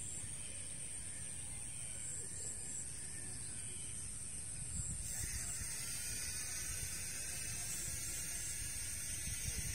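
Wind buffeting the microphone: an uneven low rumble that grows stronger about halfway through, over a steady high hiss.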